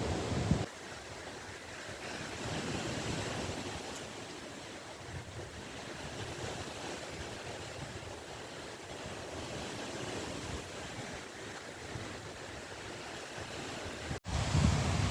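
Sea waves washing steadily on the shore, with a brief gust of wind on the microphone right at the start.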